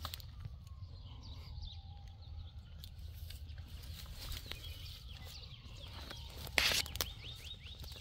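Calves sniffing and licking at a puppy through a fence: soft wet clicks and rustling, with one sharp blast of breath close to the microphone about two-thirds of the way through.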